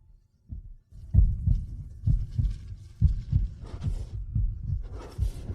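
Heartbeat sound effect: deep, low thumps, roughly two to three a second, starting about a second in, over a faint hiss.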